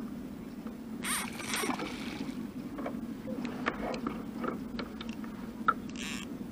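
Fishing rod and spinning reel being handled in a kayak: scattered clicks, with a brief rushing swish about a second in and a shorter one near the end, over a steady low hum.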